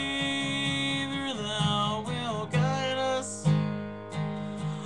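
Steel-string acoustic guitar strummed in a steady rhythm, with a man's voice singing a hymn over it, holding a long note for about the first second before moving on.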